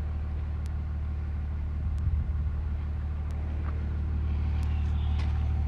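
Pickup truck engine running steadily at an even, low speed, with a few faint clicks over it.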